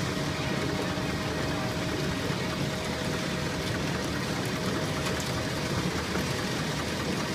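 Four-row biscuit sandwiching machine running: a steady, dense mechanical din from its conveyors and feed mechanisms, with a faint steady tone underneath.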